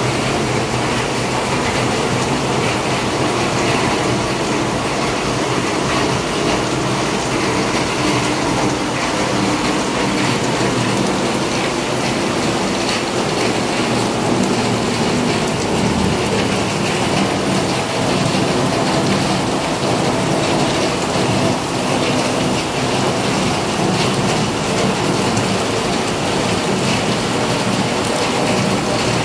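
Heavy rain falling steadily on trees and the ground, a loud, even hiss without let-up.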